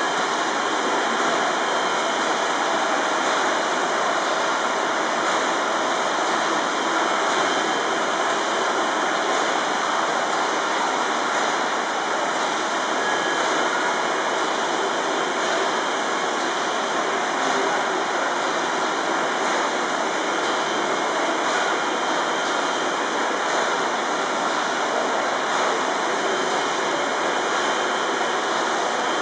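1878 Godard & Massey compound rotative beam engine turning over without steam, heard as a steady, even rushing hiss with no distinct beats.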